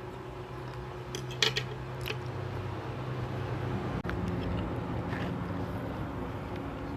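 Eating sounds at a table: a few short clinks and clicks of utensils on a plate, a quick cluster a little over a second in being the loudest, over a steady low hum.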